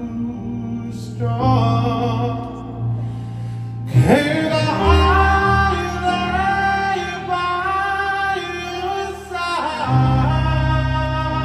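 A solo singer singing a slow ballad live into a microphone over instrumental accompaniment, holding long notes, with a sweeping rise in pitch into a held note about four seconds in.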